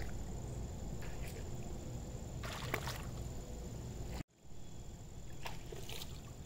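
Popper lure being reeled straight across the water surface, giving short splashing gurgles as it pushes water, the strongest about two and a half seconds in and a few more near the end, over a steady low outdoor rumble. The sound drops out for a moment a little past four seconds.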